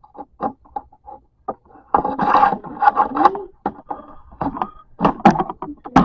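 Objects being handled: a string of short knocks and clicks, with a busier scraping, clattering stretch about two seconds in, then more knocks toward the end.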